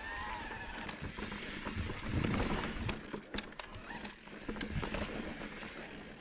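Mountain bike climbing a dirt trail: tyres rolling over rough ground with scattered clicks and rattles from the bike. There is a low rumble about two seconds in, and a faint wavering whine near the start.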